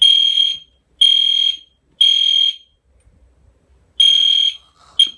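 Two Edwards Genesis G1RF horn strobes sounding in the temporal-3 evacuation pattern: three short, high horn blasts about a second apart, a longer pause, then a fourth blast and a brief blip near the end.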